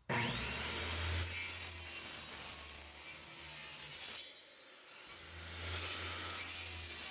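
A saw cutting diagonally into a crooked wooden wall stud, a steady cut that stops about four seconds in and starts again a second later. The diagonal cut lets the stud be pulled straight with a screw.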